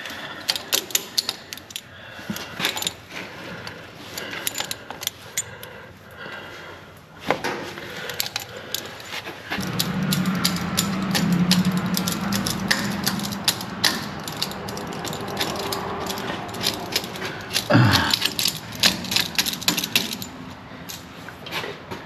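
Hand tools clinking and tapping on metal at a truck's rear axle brake fittings while the brake bleeder is worked, with two louder knocks. A low steady hum runs for a few seconds in the middle.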